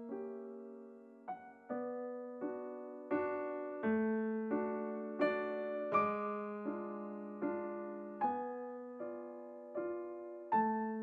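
Background piano music: a slow, even run of chords, each struck and left to fade, about one every three-quarters of a second.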